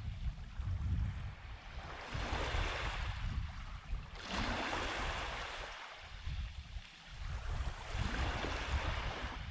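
Small waves breaking and washing up a sandy shore, the rush of water swelling and fading every few seconds, over a low rumble of wind on the microphone.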